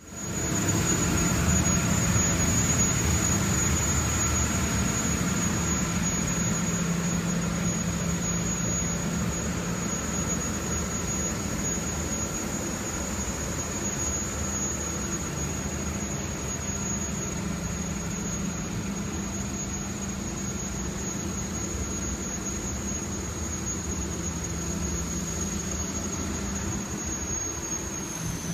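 Lycoming T53 gas turbine running steadily with a high, even whine over a low hum; near the end the whine starts to fall in pitch as it begins to spool down.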